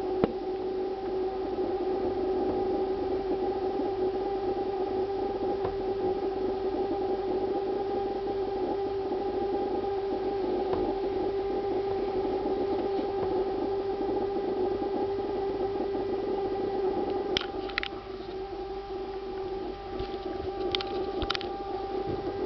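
Refrigerator giving off a steady droning hum with a fast buzzing rattle in it, a noise the owner holds is not a fridge's normal sound. A few sharp clicks come near the end.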